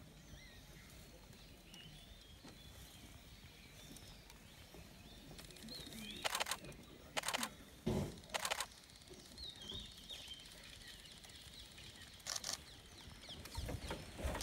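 Quiet forest ambience with small birds chirping sparsely. Four short bursts of clicking stand out about six, seven, eight and a half and twelve seconds in.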